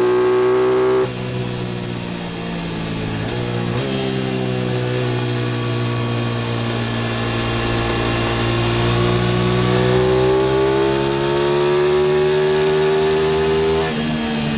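Aprilia RS660's parallel-twin engine pulling hard under throttle. It shifts up about a second in, again around four seconds, and near the end. In between, the revs climb slowly and steadily in a high gear.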